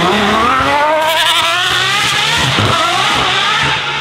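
Aston Martin Valkyrie's 6.5-litre Cosworth V12 at full throttle, accelerating hard from a standing start with the revs climbing. It gets a little quieter near the end as the car pulls away.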